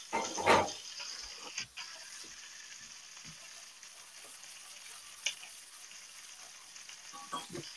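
Ground-lamb burger sizzling steadily as it fries in a pan, with a short clatter about half a second in and a few faint ticks later.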